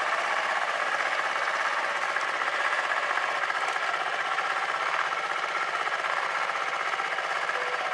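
Small engine running at a steady speed, with a fast, even rattle and no revving.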